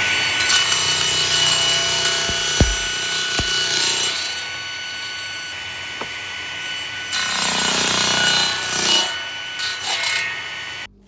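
Electric power tool running and working wood, with a steady motor whine under a rasping cut. It grows louder for a couple of seconds past the middle, then cuts off suddenly near the end.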